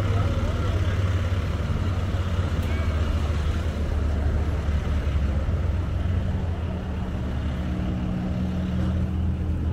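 A steady low engine hum, as of a motor idling nearby, over constant outdoor background noise.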